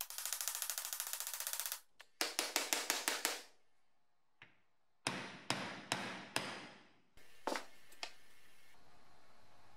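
Hammer striking a steel pin punch to drive the old rear crankshaft seal out of the BMW M20B25's aluminium seal housing. It comes as two quick runs of rapid metallic taps, then four separate, harder strikes about five seconds in, and a couple of light knocks near the end.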